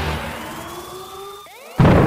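Cinematic score: a deep boom fades out, a short rising whoosh follows, and near the end a sudden loud thunderclap breaks with rain.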